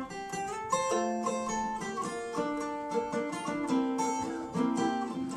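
Acoustic guitar picking a melodic instrumental introduction to a folk song, a quick run of single notes that ring on and overlap.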